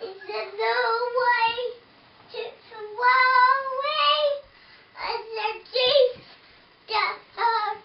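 A young girl singing in short phrases with brief pauses between them, some notes held for about a second.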